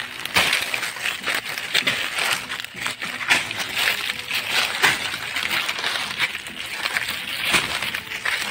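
Ground fire crackling as it burns through dry fallen leaves, a dense stream of irregular snaps with a few sharper cracks, mixed with the crunch and rustle of dry leaf litter underfoot.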